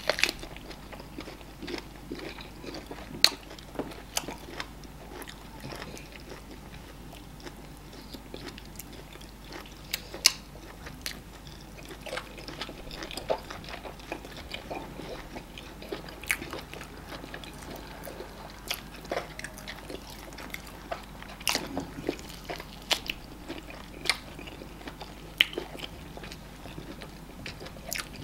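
Close-miked mouth sounds of two people eating amala and ogbono soup with meat by hand: chewing and biting with sharp, irregular clicks and smacks, a few of them much louder.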